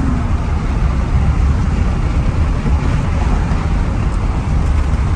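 Steady road and wind noise in the cab of a 1999 GMC Sierra pickup driving with its windows down, with a heavy low rumble underneath.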